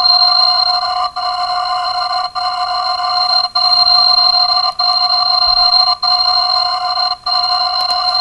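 Electronic alarm sound effect played back sped up: a loud, steady, shrill chord of tones that breaks off briefly about every 1.2 seconds and starts again.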